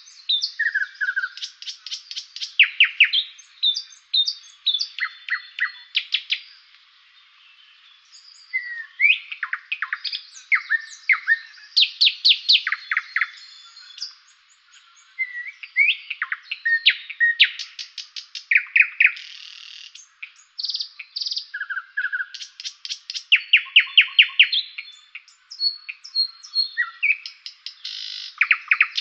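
Songbirds chirping and singing: rapid runs of chirps, short trills and falling whistles, one after another, with a brief lull about seven seconds in.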